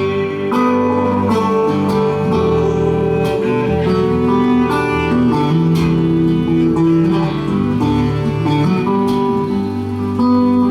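Acoustic guitar playing an instrumental break in a folk song, with long held melody notes over the plucked accompaniment.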